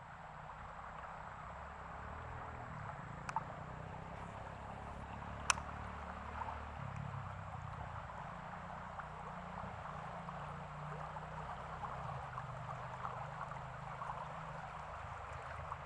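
Steady rush of flowing floodwater, with two sharp clicks, one about three seconds in and one near the middle.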